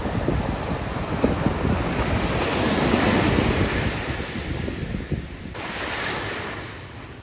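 Ocean waves breaking on a sandy beach and washing up the shore, swelling to their loudest about three seconds in and then easing off, with wind buffeting the microphone.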